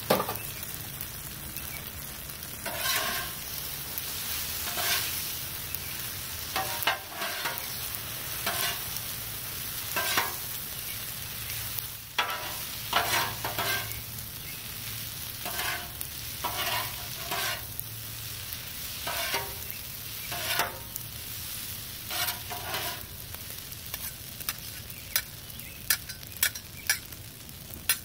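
Stir-fried noodles and vegetables sizzling on a Blackstone flat-top griddle, with two metal spatulas scraping and tossing them across the steel surface every second or two over a steady sizzle. Near the end there are several sharp clacks of the spatulas on the griddle.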